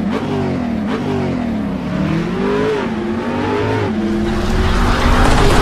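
Car engine revving, its pitch rising and falling several times and growing louder near the end.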